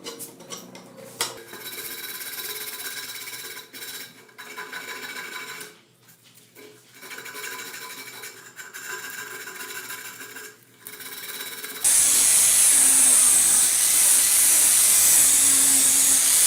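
Small power tool whirring in short runs with brief pauses, then about twelve seconds in a much louder power tool starts abruptly and runs steadily with a strong high hiss.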